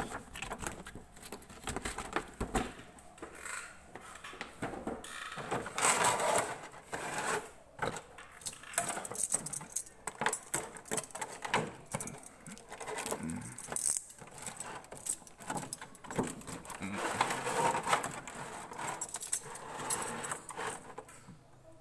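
Clear plastic blister tray and plastic bag being handled while a figure is unpacked: irregular crinkling and clicking, with louder bursts about six seconds in and again near the end.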